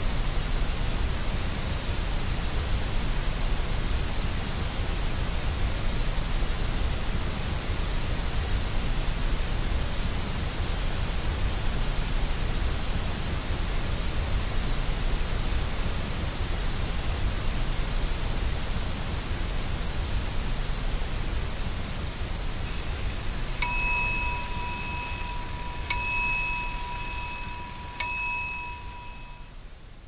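Steady hiss of white noise, then three soft bell strikes about two seconds apart near the end, each ringing out and dying away, signalling that the timer has finished. The noise fades out under the last strike.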